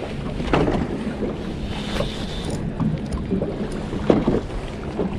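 Wind on the microphone and water slapping against a small boat's hull, with a low steady hum underneath and a few sharp knocks, one about half a second in and one about four seconds in.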